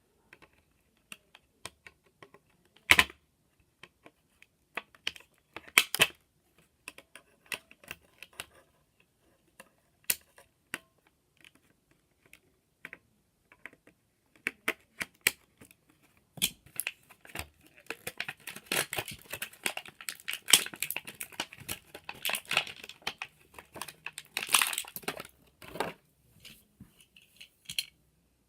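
Small plastic Beyblade parts clicking and rattling as a spinning top is assembled by hand, mixed with packaging crinkling. Scattered sharp clicks at first, turning into a busy stretch of handling noise in the second half.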